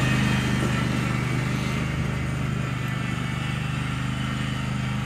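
Riding lawn mower engine running steadily, getting a little quieter over the first couple of seconds.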